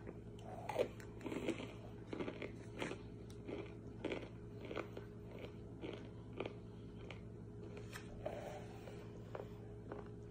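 Biting and crunching a frozen sweet tea water chunk coated in cornstarch, with irregular sharp crunches, dense at first and then thinning out into slower chewing.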